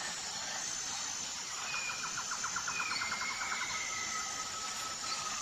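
Birds calling over a steady outdoor hiss: a rapid trill about two seconds in, then long whistled notes.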